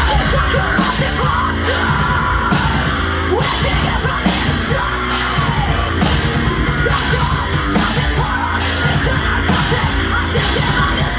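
Heavy metal music from a band: pounding drums and distorted guitars, with a cymbal accent a bit under once a second and a yelled vocal.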